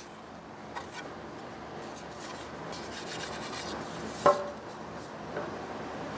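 Pine boards of a window extension jamb handled and rubbed together as the pieces are fitted, with one sharp wooden knock about four seconds in as the top piece is set onto the side boards.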